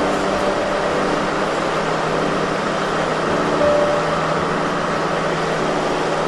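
Steady running noise of a diesel train's engine, heard from inside the driver's cab.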